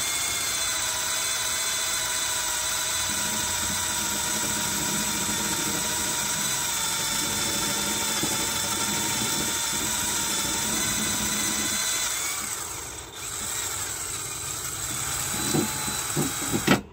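Cordless drill running steadily with a motor whine, its bit turning in a broken bolt in an engine's cylinder head. It slows and dies away about 12 seconds in, runs again with a few sharp clicks near the end, then stops abruptly.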